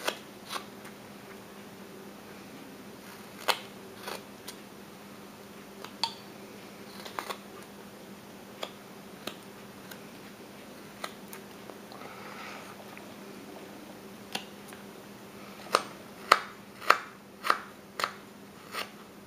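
Whittling knife slicing chips off a small wooden figure, each cut a short sharp click. The cuts are scattered at first, then come in a quicker run of about six, roughly two a second, near the end.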